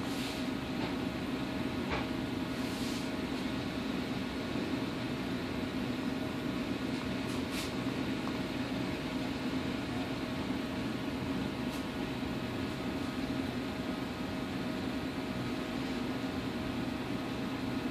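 Steady mechanical hum of running equipment, with a thin steady tone over it and a few faint brief ticks.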